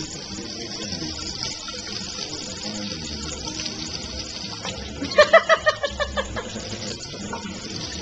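Kitchen faucet running steadily into the sink. About five seconds in comes a quick run of about eight pitched, laugh-like pulses.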